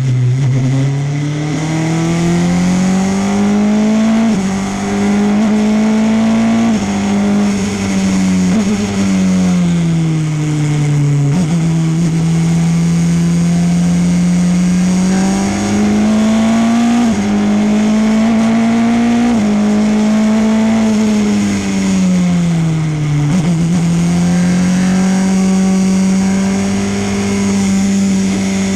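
Onboard sound of a Formula Renault 2.0 race car's 2.0-litre four-cylinder engine lapping a circuit. The engine note climbs under acceleration and drops with a sudden step at each gear change, then sinks on braking for corners, several times over.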